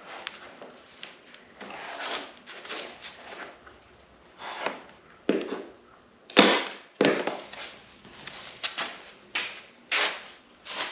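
Irregular knocks, taps and short scraping rustles of hands-on work as carpet and tools are handled, with one sharper knock about six and a half seconds in.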